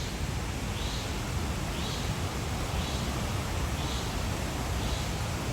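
Steady background noise, like an even rush, with a faint soft high sound repeating about once a second.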